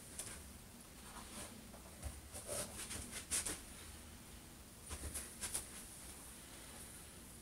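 Faint rustling and a few short scratchy sounds of clothing being handled and adjusted on the body, in two clusters about two seconds in and about five seconds in.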